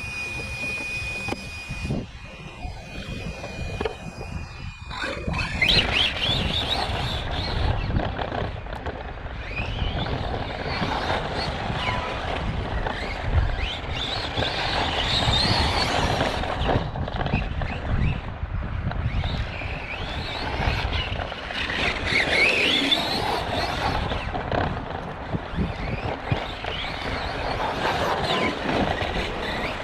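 Arrma Kraton 4S RC monster truck's motor and drivetrain whining and squealing as it drives laps. The whine rises and falls in pitch with speed, with a steadier high tone for the first few seconds before it speeds up. The owner suspects an unhappy bearing or gear.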